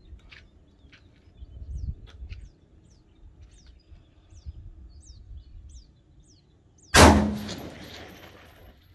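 A single shot from an M16A2 rifle firing 5.56 mm M855 62-grain ball about seven seconds in: a sharp crack followed by a long echo that trails off for nearly two seconds. Before the shot a bird repeats short falling chirps.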